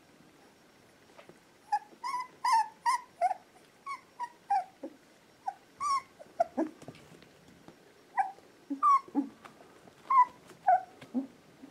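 Four-and-a-half-week-old Australian Labradoodle puppies whimpering: a string of short, high squeaky cries, some falling in pitch, starting about two seconds in.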